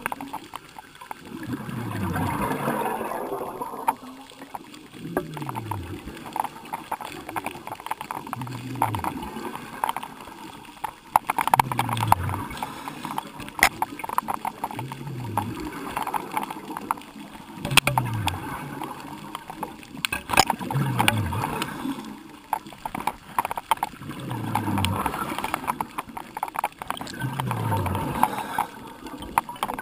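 Scuba diver breathing through a regulator underwater: exhaled bubbles gurgle, with a low falling tone every two seconds or so. Scattered clicks and knocks come from handling sea urchins and the hoop net.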